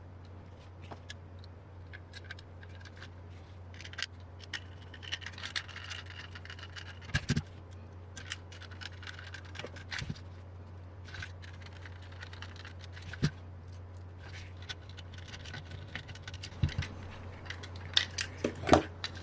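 Small plastic and metal kit parts and tools being handled during RC car kit assembly: scattered light clicks, taps and short scrapes, the sharpest clicks near the end, over a steady low hum.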